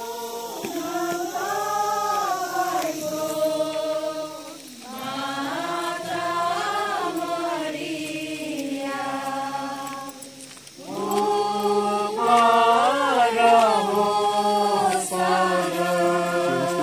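A group of people singing a hymn together in unison, in long held phrases with two short pauses for breath.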